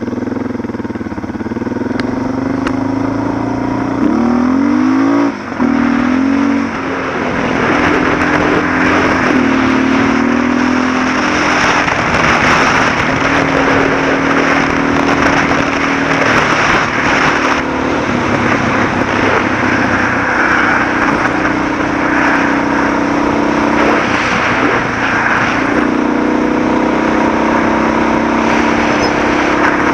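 Suzuki DR650's single-cylinder engine running as the motorcycle rides a gravel road, its note rising and falling with the throttle and briefly dropping about five seconds in, over a steady rush of wind and tyre noise.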